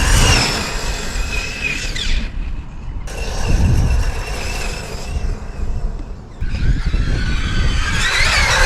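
6S brushless motor of a ZD Racing Pirates 3 RC car whining at speed during a speed run, the high whine falling in pitch about two seconds in and rising and swooping again near the end. A low rumble runs underneath.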